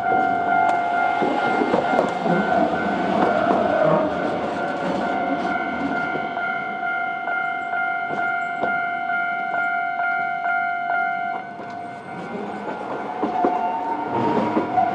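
Level-crossing warning bell ringing steadily while a city tram rumbles across on the rails with some clickety-clack. The bell stops about three quarters of the way through, and a rising whine follows near the end.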